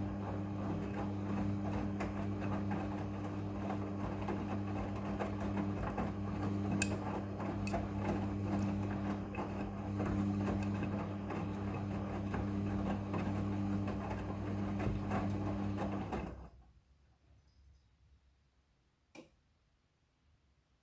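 Midea front-loading washing machine running with a steady mechanical hum that stops suddenly about sixteen seconds in. A single click follows a few seconds later.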